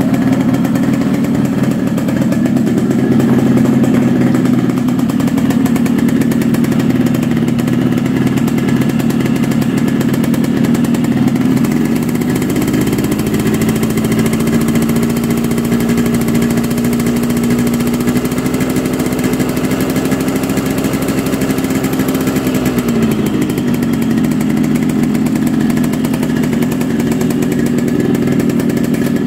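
Freshly rebuilt Yamaha RX Special two-stroke single-cylinder engine running, fitted with a new piston, connecting rod and crankshaft bearings. It runs at a steady speed, is raised a little about twelve seconds in and held there for some ten seconds, then settles back down.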